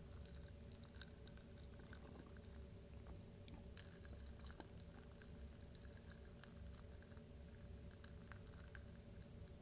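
Faint close-miked chewing of a chicken bowl: scattered soft, wet mouth clicks and squishes, over a steady low electrical hum.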